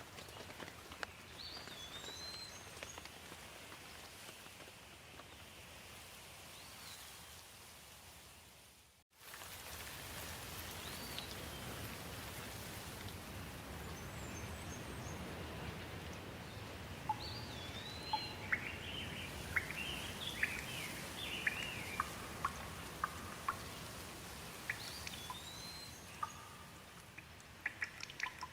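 Steady rain, with birds chirping now and then. About a third of the way in, the sound drops out for an instant and comes back, and in the second half close drops tick and patter sharply above the rain.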